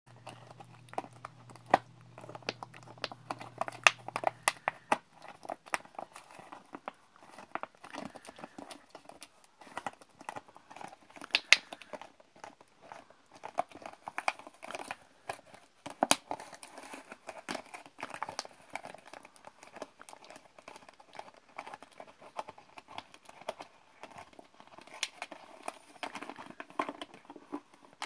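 Samoyed puppy chewing a plastic water bottle: irregular crunching and crinkling of the thin plastic, with sharp cracks now and then.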